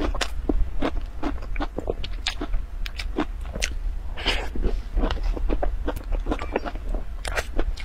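A person chewing a mouthful of soft cream cake up close, with a quick run of wet mouth clicks and smacks.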